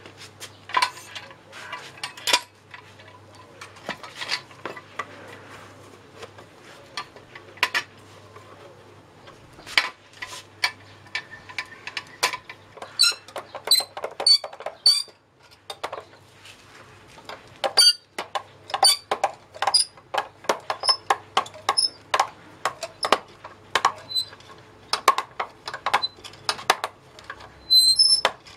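Irregular metallic clinks and clanks from a steel barrel-squeezing press being handled and adjusted, with some strikes ringing briefly.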